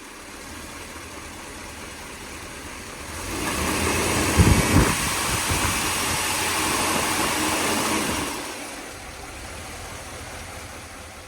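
1957 Mercury 368 cu in V8 running at idle, revved up about three seconds in and held for about five seconds, with a brief loud burst as it picks up, then settling back to idle. The engine has a knock that the owner says is worse when cold and still there at higher rpm when warm.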